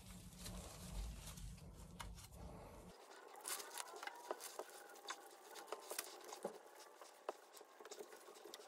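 Faint rustling and scattered small clicks and scrapes of hands working fibreglass exhaust wrap and its fittings around a motorcycle's exhaust pipe.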